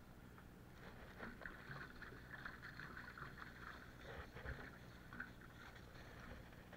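Faint splashing and trickling of water poured from a large plastic water jug onto the soil and dry leaves at a plant's base.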